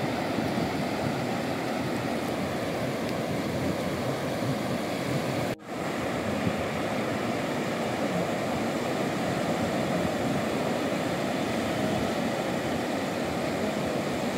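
Surf breaking and washing over the wet sand of a beach: a steady rushing that drops out for a moment about five and a half seconds in.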